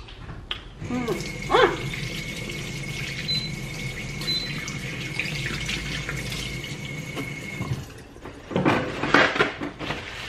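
Kitchen faucet running steadily into the sink, turned on about a second in and shut off after about seven seconds.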